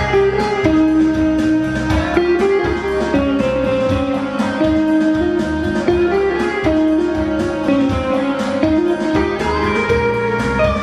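Live band music without vocals: a guitar carries a melody of held notes over a steady drum beat.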